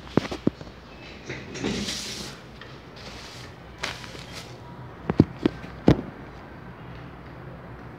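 Handling noise from hands on the recording phone: brushing rubs and several sharp knocks, the loudest cluster about five to six seconds in.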